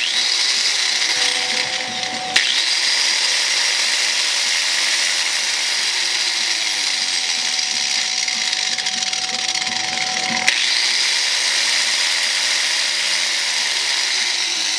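Electric angle grinder running at full speed with a steady high whine and hiss, in three stretches joined by abrupt cuts about two and a half and ten and a half seconds in.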